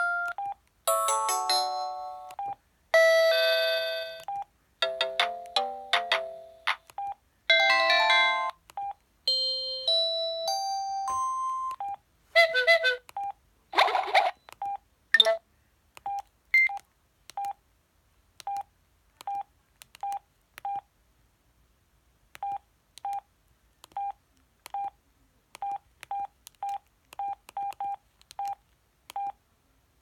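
Samsung SGH-E700 flip phone previewing its preloaded message alert tones through its loudspeaker: a run of short melodic jingles, one after another, each cut off by a single key beep. From about halfway on, only single keypad beeps are heard, about two a second with pauses, as the menus are stepped through.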